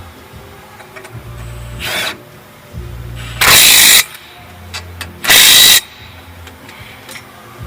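Cordless power tool, such as a drill or impact driver, running in two short loud bursts about a second and a half apart, with a shorter, softer burst before them. It is driving bolts during installation of the front brake caliper bracket.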